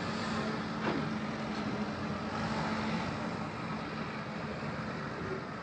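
Steady hum of road traffic, with a faint steady engine tone under it.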